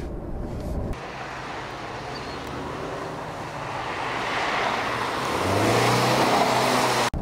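A second of muffled rumble inside the cabin, then the 2022 Subaru Forester Wilderness's flat-four engine and tyres heard from the trackside as it corners past, growing louder. Its engine note rises near the end.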